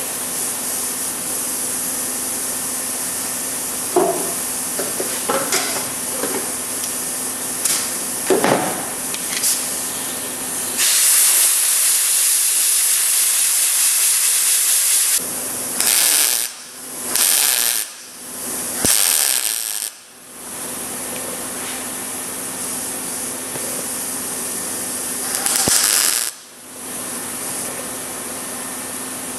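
Welding on a sheet-metal cowl patch panel: a loud arc hiss lasting about four seconds, then a string of short tack-weld bursts and one more burst later, over a steady shop hum and hiss.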